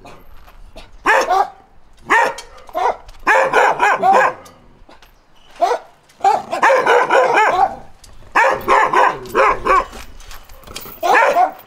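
Chained dog barking in quick runs of several barks, about six runs with short pauses between them.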